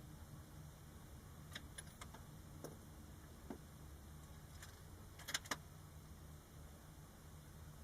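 Several faint, irregular clicks and ticks over a low steady hum, the two sharpest a little past five seconds in; no shot is fired.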